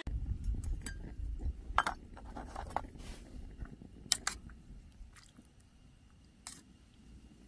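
Metal spoon clinking a few times against a camping cook pot while noodles are stirred in hot water, over a steady low rumble of wind on the microphone.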